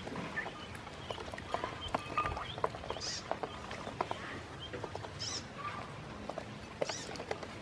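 A group of ducklings dabbling and pecking feed in a shallow plastic basin of water: many small clicks and light splashes from their bills. A few short high peeps come about three, five and seven seconds in.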